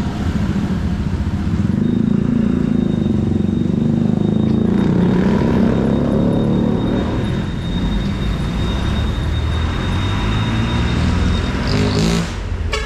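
Street traffic rumbling, with one motor vehicle's engine passing close by: loudest for a few seconds after the start, then dropping in pitch and fading back into the traffic.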